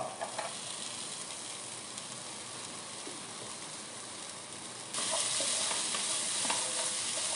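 Chopped onion, carrot and capsicum sizzling in oil in a non-stick frying pan, with a wooden spatula stirring through them. The sizzle is steady and grows louder about five seconds in.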